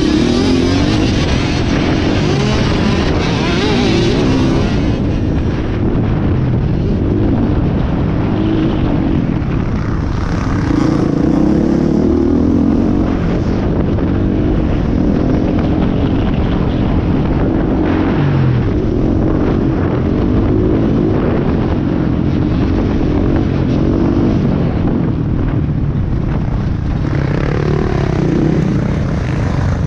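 Dirt bike engine running hard under race load, its pitch rising and falling repeatedly as the throttle is opened and shut through turns and gear changes, heard from an on-bike camera over a steady rush of noise.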